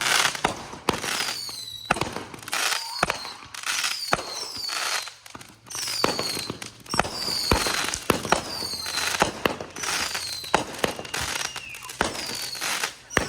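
Fireworks going off in quick succession: a burst about every second, each with sharp cracks and a high whistle falling in pitch.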